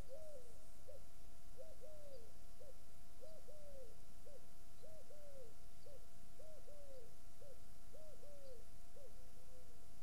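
Pigeon cooing: a short three-note phrase repeated about every second and a half, trailing off into softer notes near the end.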